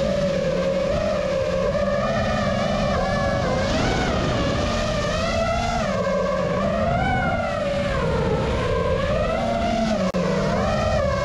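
Quadcopter drone's motors and propellers whining, the pitch rising and falling as the throttle changes while it flies low over the water. The sound cuts out for an instant about ten seconds in.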